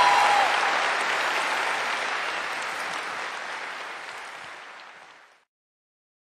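Large audience applauding, a dense steady clatter of many hands that fades gradually and cuts off to silence about five seconds in.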